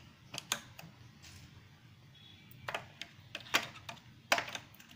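D-size batteries being pushed and seated into the plastic battery compartment of an automatic aerosol dispenser: a string of short sharp clicks and knocks, the loudest about three and four and a half seconds in.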